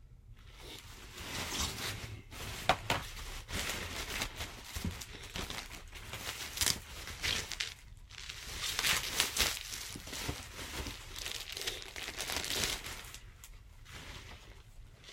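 Plastic packing material crinkling and rustling in irregular bursts as it is handled and pulled away from a shipped comic book, dying down near the end.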